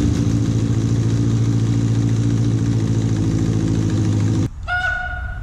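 Freshly rebuilt Yamaha FZ1 Fazer inline-four engine running at a steady idle just after firing up on its starter, then cutting off abruptly about four and a half seconds in. A man's excited shout follows near the end.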